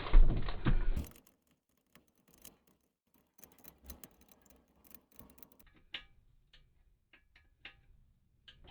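Light, irregular clicking of a wrench tightening the nuts on a toilet's floor bolts, in short runs with pauses, after a second of louder knocking at the start.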